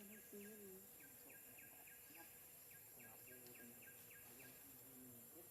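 Faint insect chirping outdoors: short high pulses repeating evenly, about five a second, over a quiet background hum.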